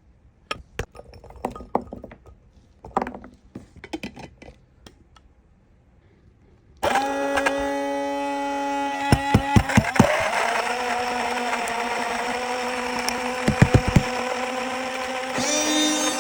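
A series of clicks and knocks, then about seven seconds in a portable blender's motor starts and runs with a steady hum. Loud knocks come twice as whole orange and blueberries hit the blades and the jar.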